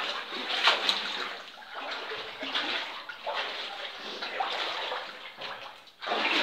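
Footsteps wading through shallow water on a mine tunnel floor, splashing and sloshing in uneven strokes, with a brief break near the end.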